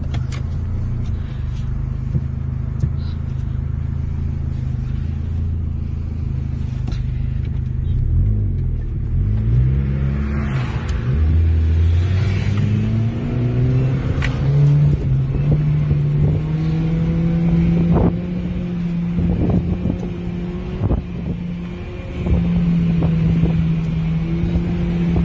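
Car engine heard from inside the cabin: a steady drone, then from about eight seconds in it accelerates hard, its pitch climbing in several steps and holding high near the end. A few short knocks sound over it in the second half.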